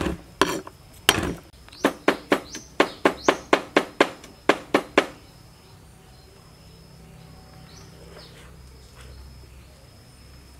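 Kitchen knife chopping garlic on a wooden cutting board: quick, sharp knocks about three a second that stop about five seconds in. After that, a quieter background with faint, intermittent high chirping of insects.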